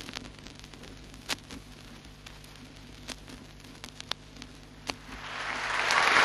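Vinyl record surface noise: scattered clicks and crackle over a faint steady hum. About five seconds in, audience applause on the recording swells up and grows loud.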